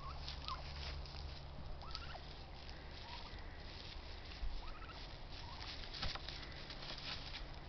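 Domestic turkeys giving short, rising calls four or five times, over steady crackling and rustling of dry leaves and grass.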